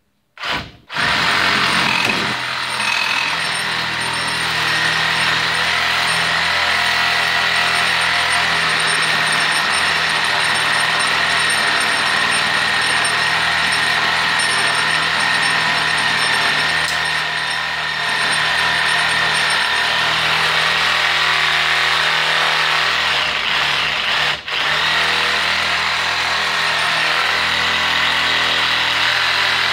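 Cordless reciprocating saw running with a steak knife in place of a saw blade, the knife rubbing back and forth against a clamped wooden stick. It starts with a short burst, then runs steadily with a high whine, cutting out for a moment once near the end. The knife barely cuts and scorches the wood with friction.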